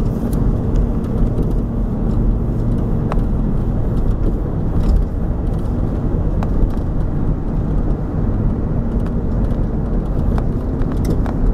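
Steady road noise of a car driving at speed, heard from inside the car: a low tyre and engine drone with a few small clicks and rattles.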